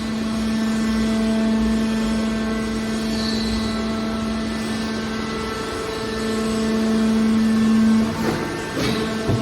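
Hydraulic metal baler running, its pump and motor giving a steady hum that grows louder for a couple of seconds before the end. Near the end the hum drops and a few clanks are heard.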